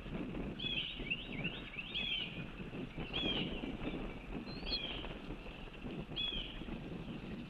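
A bird calling over and over, short high looping notes about once a second, over a steady low rumble.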